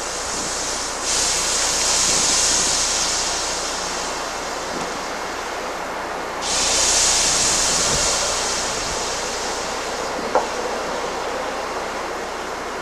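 50-50 coolant mix poured onto a manifold heated to about 680 degrees, sizzling and hissing as it flashes to steam, in two surges about a second in and again about six and a half seconds in, each fading over a few seconds. At this normal manifold operating temperature the mix only boils off and does not catch fire.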